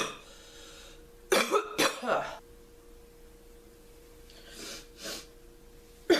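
A sick, congested girl's crackly, barking cough: a quick fit of three or four coughs about a second in, followed by two faint noisy breaths, with another cough just starting at the end.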